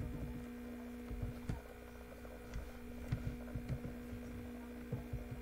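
Steady electrical hum on the recording, with a few scattered soft keyboard clicks as a word is typed.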